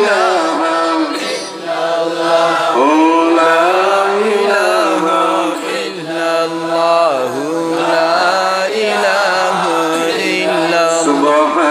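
A man's voice chanting Islamic devotional recitation into a microphone, in long melodic phrases that glide up and down, with short breaths between them.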